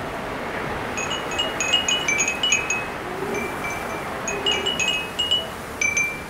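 Wind chimes tinkling: irregular clusters of short, high metallic pings that start about a second in and come in flurries over a steady background hiss.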